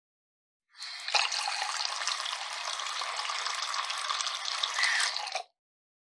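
Water running from a sink tap: a steady splashing stream that starts just under a second in and is shut off abruptly near the end, after about five seconds.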